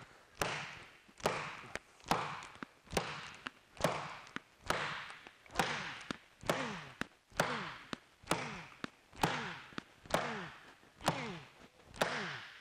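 A bossing hammer strikes a thin welded aluminum sheet panel on a leather sandbag in slow, steady blows, about one a second, each blow followed by a brief falling ring from the sheet. The hammering is a torture test of the TIG pulse butt weld, which holds together.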